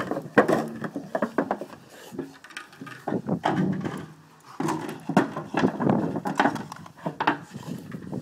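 Rottweiler growling in play while it bites and knocks about an empty 5-gallon plastic water bottle: a string of hollow plastic knocks and crinkles mixed with low growls.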